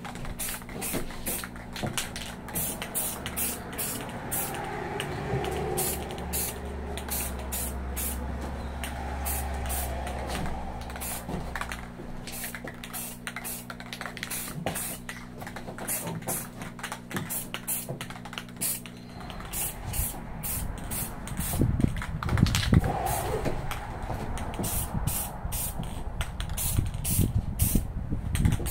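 Aerosol spray paint cans hissing as paint is sprayed, with a fast, even rattle of about three clicks a second from a can being shaken.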